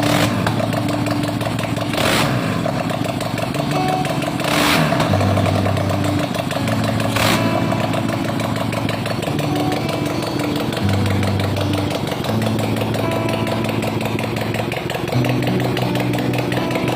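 Custom two-cylinder engine built into a Yamaha Mio scooter, running at its first start-up, its pitch stepping up and down every few seconds with a few short revs.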